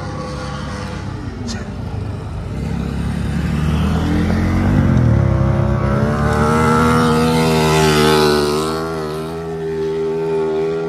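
Dirt-track race car engines running laps on the oval. The engine note builds and is loudest about six to eight seconds in, then eases off.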